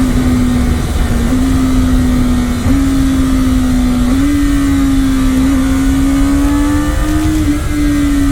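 Kawasaki Ninja ZX-10R's stock inline-four engine running under way, its note held steady and stepping up a little in pitch several times, over a heavy low rumble.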